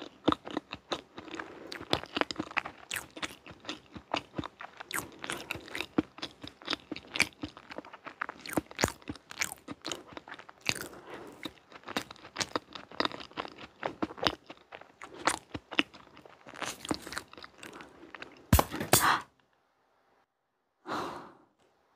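Close-miked chewing of soft chocolate cake and cream, dense irregular small wet clicks and smacks of the mouth. A louder cluster comes just before a second-long pause, followed by one short mouth sound.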